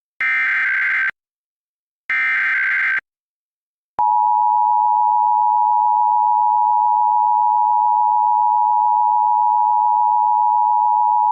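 Emergency Alert System SAME header: the last two of three roughly one-second bursts of digital data tones, about two seconds apart, encoding a Required Monthly Test. About four seconds in, the steady two-tone EAS attention signal starts and holds without a break.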